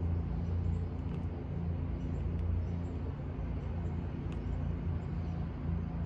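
Lawn mower engine running steadily at a distance, a low even hum.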